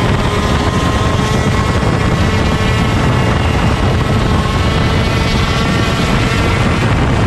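125cc two-stroke shifter kart engine running hard at high revs, its pitch wavering slightly up and down as the revs change, over a heavy low rumble.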